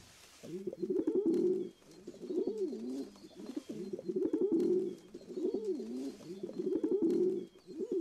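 Feral rock pigeons cooing: a run of low coos, one after another with short pauses, each rising and falling in pitch.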